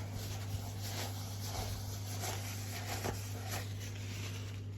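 Light rubbing strokes from wiping inside an engine cylinder bore to clean it. There are a handful of brief strokes over a steady low hum.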